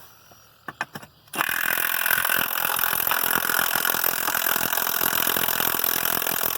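Milwaukee Fuel half-inch drive cordless impact wrench loosening a nut on a tractor's rear wheel rim. A few light clicks, then about a second and a half in the wrench starts hammering rapidly and steadily.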